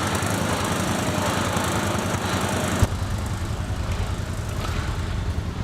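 An engine running steadily, with a quick, even low chugging. A higher hiss over it stops abruptly about three seconds in.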